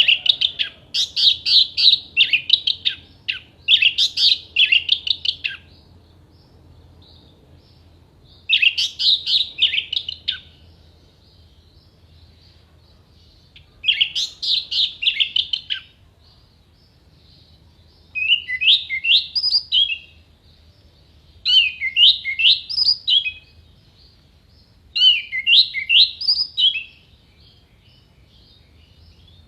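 Orange-headed thrush (anis merah) singing in separate bursts of rapid, sharp, high notes, its song packed with mimicked phrases. The first burst runs about five seconds; the later ones are shorter, a second or two each with a few seconds' pause between. The last three are quicker sweeping notes.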